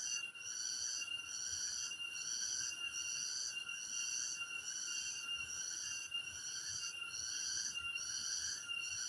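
Insect chorus in the forest: a continuous high-pitched buzzing in several bands that swells and dips evenly, a little more than once a second.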